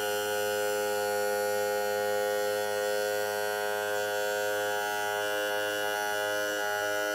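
Electric power trim/tilt motor on a Johnson 40 HP outboard running with a steady hum as the motor is tilted down.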